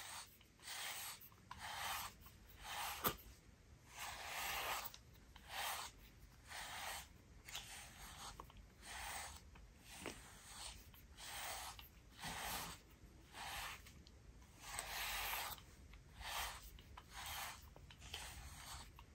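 A slicker brush stroking through a cat's fur. Faint rhythmic brushing strokes, about three every two seconds.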